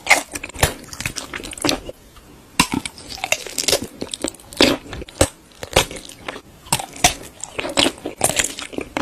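Close-miked chewing and biting of sausages: a steady run of short, irregular mouth clicks and crunchy bites, with a brief pause about two seconds in.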